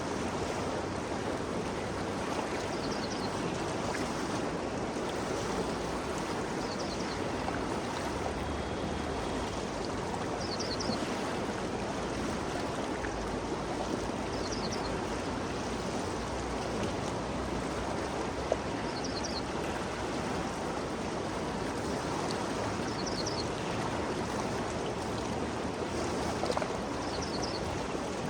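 Ganges River flowing: a steady, even rush of water, with faint short high chirps every few seconds.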